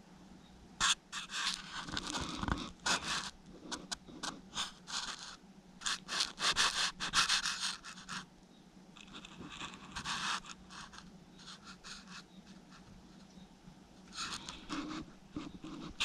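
Raccoons eating from dishes: scratchy scraping, clicking and chewing noises in irregular bursts, with short quiet gaps between them.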